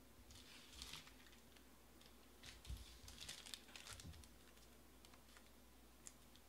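Faint crinkling and rustling of packaging being handled, in two short spells: about half a second in and again from about two and a half to four seconds in.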